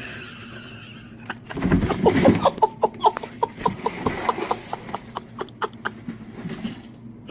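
An animal making a quick run of short, clipped calls, several a second, after a brief low rumble about a second and a half in.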